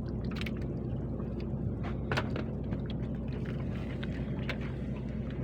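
Small boat engine running at a steady drone, with a few short knocks or splashes on top.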